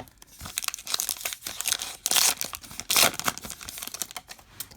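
Baseball card pack wrapper being torn open and crinkled in the hands, a dense run of crackling that is loudest about two and three seconds in.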